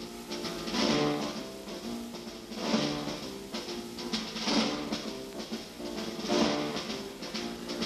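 Instrumental introduction to a Soviet-era estrada song: a band plays sustained chords, with a drum-kit accent about every two seconds.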